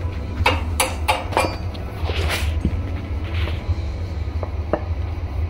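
Wooden rolling pin rolling dough on a round wooden board (chakla), with irregular knocks and clicks of wood on wood and short swishes. A steady low hum runs underneath.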